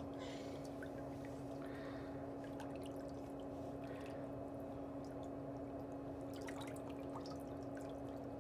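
A steady low hum with a faint hiss, with a few faint, scattered small ticks over it.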